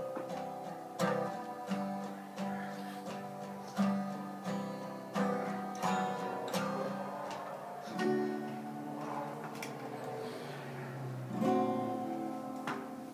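Acoustic guitar played solo, chords picked and strummed in a steady rhythm.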